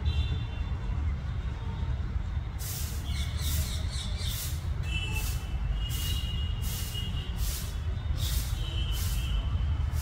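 Wind rumbling steadily on the microphone, with a quick run of short, high bird calls, about two a second, starting about three seconds in.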